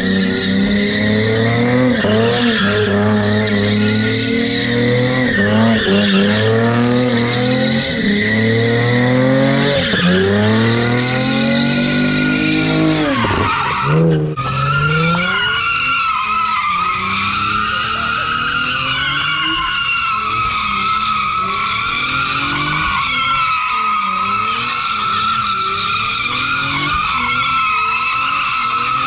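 A car doing donuts with its engine revving hard, the pitch rising and falling over and over, and tyres squealing. About halfway through, a steady, wavering tyre screech takes over, with the engine running lower beneath it.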